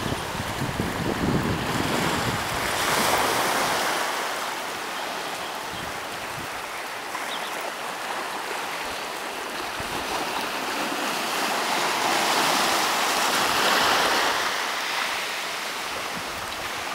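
Small sea waves breaking and washing up on a sandy, rocky shore, the surf swelling twice. Wind rumbles on the microphone in the first couple of seconds.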